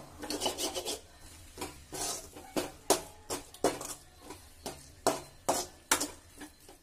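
Steel spoon scraping and clinking against a metal kadai as bitter gourd fry with grated coconut is stirred: a run of short, irregular scrapes, about two a second.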